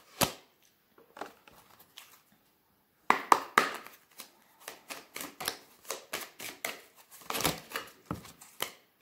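A deck of oracle cards being shuffled by hand. There is a sharp tap near the start and a few faint clicks, then from about three seconds in a quick run of card snaps and slaps.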